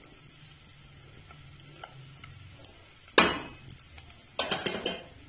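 Sliced onion sizzling faintly in a little hot oil in a non-stick pan. A single sharp knock comes about three seconds in, and near the end there is a quick run of clattering strokes as a spatula starts stirring in the pan.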